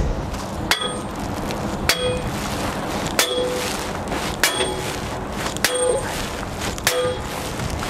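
Steel sledgehammer striking a long steel breaker pipe on the hub-nut wrench of a SAF trailer axle, six ringing metallic clangs about a second apart. The blows are meant to shock loose a hub nut that was badly over-tightened.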